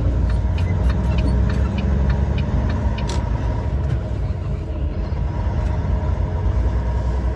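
Tractor-trailer truck running down the road, heard from inside the cab: a steady low drone of engine and road noise with a few faint ticks and rattles.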